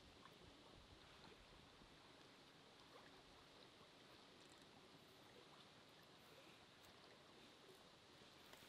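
Near silence: faint steady outdoor background hiss with a few soft ticks.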